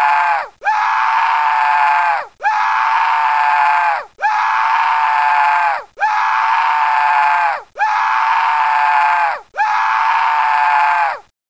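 Cartoon scream sound effect: the same short, high-pitched scream repeated about every second and three-quarters, seven times, each held steady and then dropping in pitch at its end. It cuts off just before the end.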